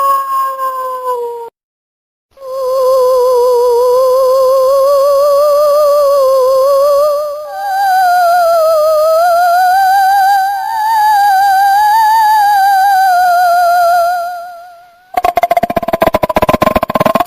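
Ghostly wailing moan sound effect: a pitched 'oooo' with a steady wavering vibrato. A first wail tails off about a second and a half in; after a short pause a long wail begins, climbs higher about halfway through and fades out near the end. Just before the end a harsh crackling buzz with a tone under it starts.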